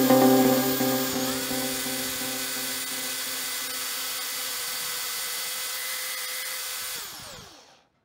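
Electric drill driving a homemade wood lathe, its motor running with a steady whine while a flat file scrapes the spinning wooden disc. About seven seconds in the drill is switched off and winds down, its pitch falling.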